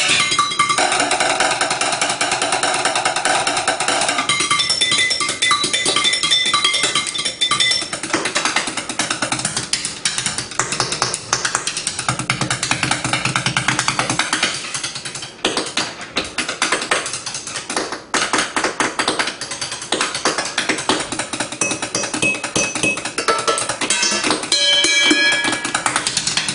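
Fast drumming with chopsticks on kitchen pots and pans, a continuous flurry of strikes. Several struck metal pans ring out with clear, sustained pitches at different moments.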